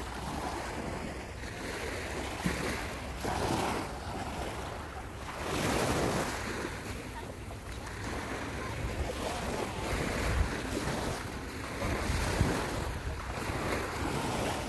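Small waves washing on a sandy beach, with wind buffeting the microphone; the wash swells loudest about six seconds in.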